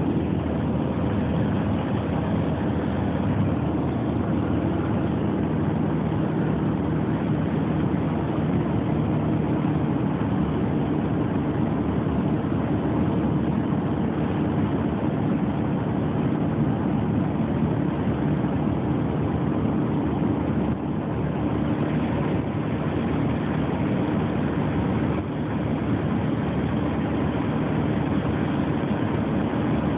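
Light aircraft's engine and propeller droning steadily in level cruise, heard from inside the cockpit.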